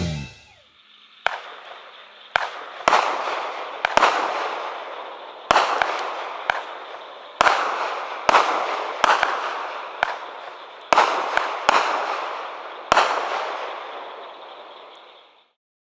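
A 200-gram consumer firework cake (Luna Chick) firing its shots: a string of about eighteen sharp bangs, irregularly spaced at one or two a second, each break followed by a fading hiss and crackle. The bangs start about a second in and the last one comes near the end.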